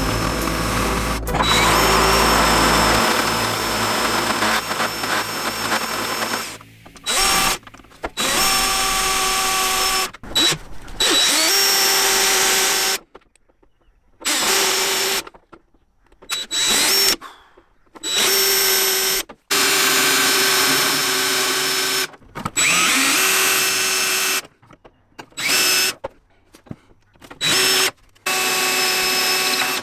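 Cordless drill driving a spot weld cutter into the spot welds of a BMW E30's steel front core support. It runs steadily for about six seconds, then in a string of short bursts of a second or two with brief pauses between cuts.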